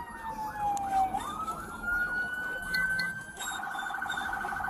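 Police car siren wailing: a long falling tone, a quick rise back up, held high, then about three and a half seconds in it switches to a rapid high-low warble. A second siren yelps faintly underneath.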